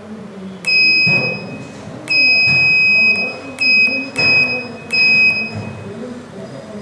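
Piezo buzzer on a push-button test circuit beeping at one steady high pitch as the button is pressed and released, five beeps of uneven length, the first two about a second long, the rest short. Background music plays underneath.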